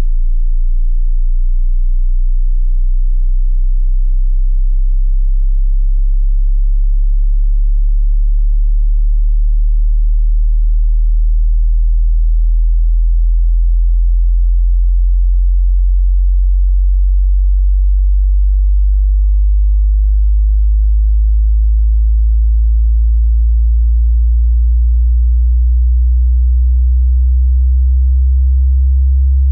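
Pure sine-wave test tone, a loud, very low hum that rises slowly and steadily in pitch: the bottom end of a 20 Hz to 20,000 Hz hearing-test frequency sweep.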